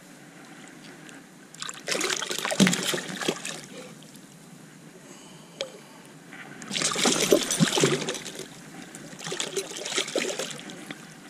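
A hooked redfish thrashing and splashing at the water's surface beside the boat as it is grabbed by hand, in three splashy bursts: about two seconds in, about seven seconds in, and again near the end.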